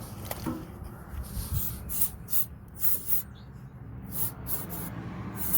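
Aerosol can of starting fluid hissing out in several short sprays, into the diesel engine's air intake to help it start, under a low steady rumble.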